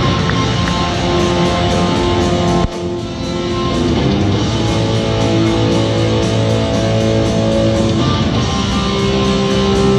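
Heavy rock music with electric guitar playing, with a brief drop in level about two and a half seconds in.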